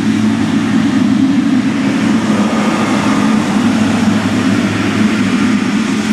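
Boeing 777 freighter's twin GE90 turbofans running at taxi power as the jet rolls and turns close by: a loud, steady rumble and roar.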